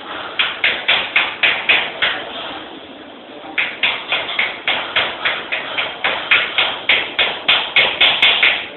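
Rapid hammer blows, about four a second, in two runs with a short pause between them.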